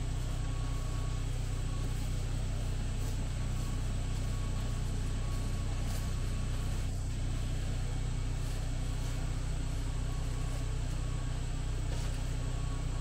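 A steady low mechanical hum, like a motor running, unchanging throughout.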